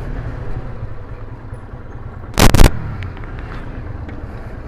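Motorcycle engine running at low speed, a steady low rumble, with one loud, short knock about two and a half seconds in.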